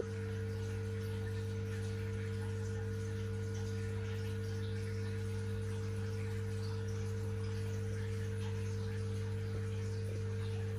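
Aquarium equipment humming steadily, a low mains hum with overtones, over a faint trickle of moving water.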